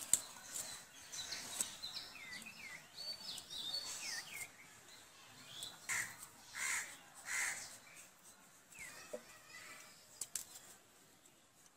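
Birds chirping with short sliding calls, and a crow cawing three times a little past the middle. A few sharp clicks are heard alongside.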